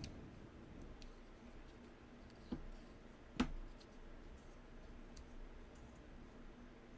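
Faint clicks and taps of a titanium mechanical pencil being handled and worked while its mechanism is jammed, with two louder knocks about two and a half and three and a half seconds in.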